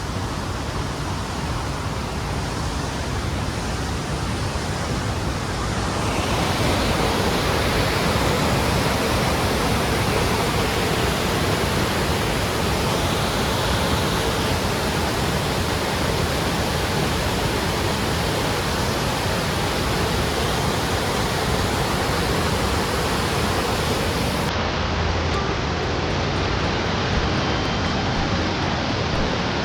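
Steady rush of falling water from the Lechfall waterfall on the Lech river, getting louder about six seconds in.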